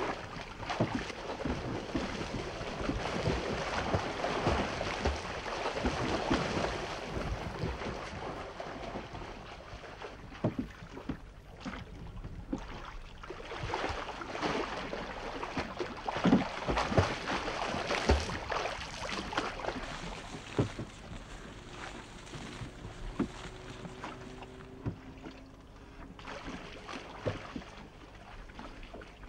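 Water sloshing and lapping, with irregular sharp knocks, swelling and easing off in slow waves.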